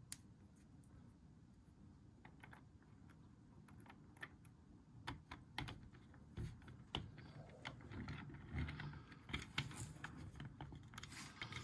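Faint, scattered clicks and taps of small plastic parts being handled: a pin pushed into a gear on a toy's shaft. The clicks come more often and louder in the second half.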